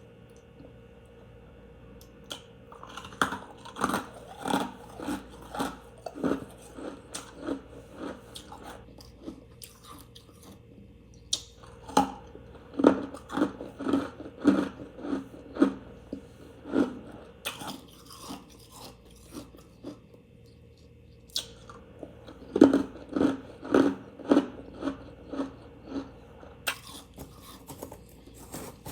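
Close-up chewing and crunching of refrigerator freezer frost, crisp bites coming in three runs of rapid crunches with short pauses between.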